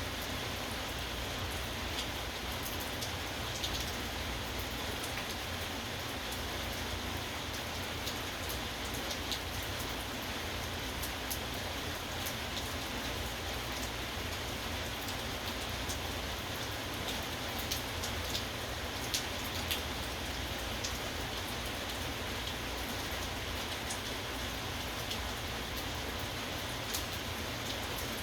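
Steady rain falling, with many individual drops ticking sharply on a hard surface.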